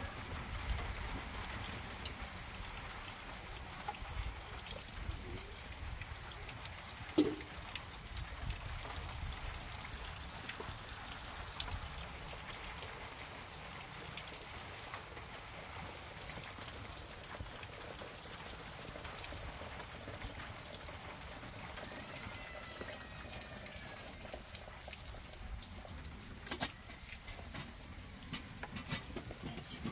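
Open wood fire crackling with scattered pops and clicks under a kettle; partway through, water is poured from a kettle into a small teapot.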